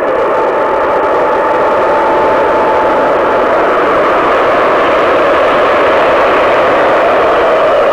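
Airbus A320neo jet engines running loud and steady as the airliner lands, building over the first second, with a whining tone that slowly falls near the end.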